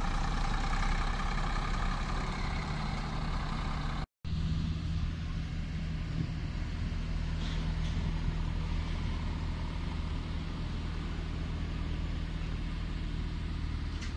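Bus diesel engine running as the bus pulls away, with a higher whine over the engine note. After a sharp cut about four seconds in, a different bus's engine gives a steady low hum as it drives slowly.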